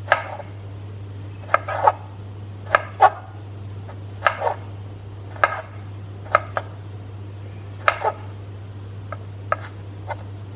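Knife chopping on a cutting board: slow, irregular strokes about one a second, some in quick pairs, over a steady low hum.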